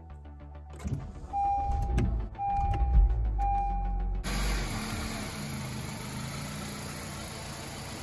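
A Honda CR-V started with its push button: three short electronic beeps, with the engine coming to life about three seconds in. From about four seconds a steady, even hiss takes over.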